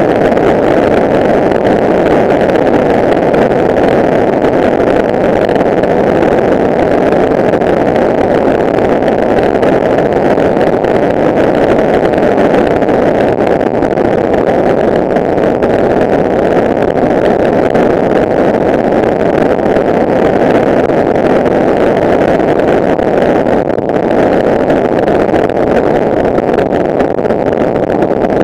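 Kawasaki ER-6n's parallel-twin engine running at steady highway cruising speed, mixed with wind rushing over the action camera's microphone. A loud, steady, muffled noise that does not change.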